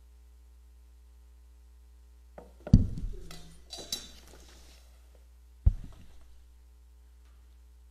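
Knocks and light clinks of objects being handled, in a cluster about two and a half seconds in, then a single thump near six seconds, over a steady electrical hum.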